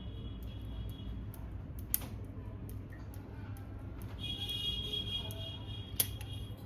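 Small stainless steel clips being fitted onto a laparoscopic bulldog clamp: light metal ticks and clicks, with two sharper clicks about two seconds in and near the end, over a steady low hum. A thin high tone sounds through the second half.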